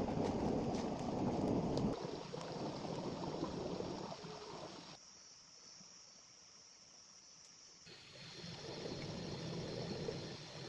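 Flowing water of a small river, a steady rushing whose level jumps abruptly a few times, loudest in the first two seconds and quietest in the middle.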